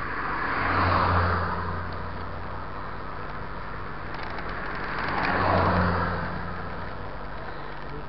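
Two cars passing on the road, each swelling up and fading away over about two seconds, one about a second in and the other around five and a half seconds, over steady road and wind noise.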